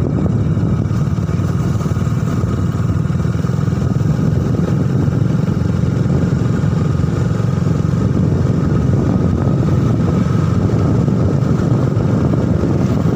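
Motorcycle ridden along a road at steady speed: the engine running with a continuous low rumble of road and wind noise on the microphone.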